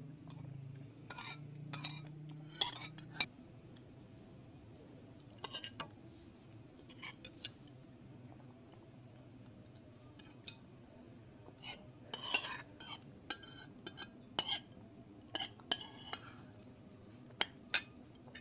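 Spoons clinking and scraping against plates as two people eat soup, a scatter of short, irregular taps.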